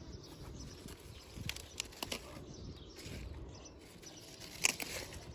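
Vegetables being picked by hand, with leaves rustling and a few sharp snaps of stems breaking; the loudest snap comes near the end.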